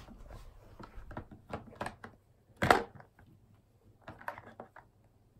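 Hard plastic toy parts clicking and knocking as small Little People figures are fitted into the seats of a plastic toy school bus, with one louder clack about halfway through.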